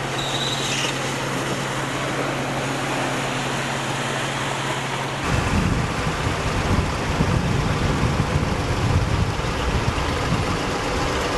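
A vehicle driving on a wet, rough track: a steady rushing noise with a low hum, then from about five seconds in a louder, uneven low rumble.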